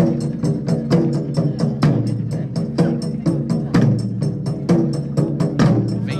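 Taiko drum ensemble playing a fast, steady rhythm, about five sharp strikes a second.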